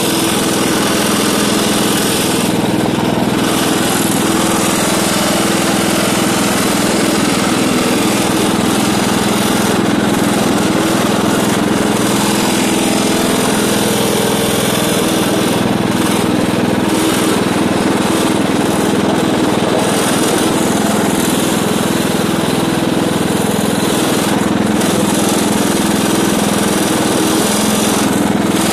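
MTD riding lawn tractor's engine running steadily at constant speed while the tractor tows a trailer loaded with firewood.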